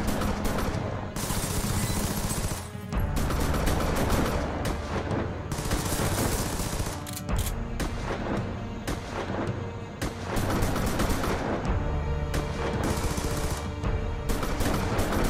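Rapid automatic rifle fire in several long bursts with short breaks between, over a tense dramatic music score.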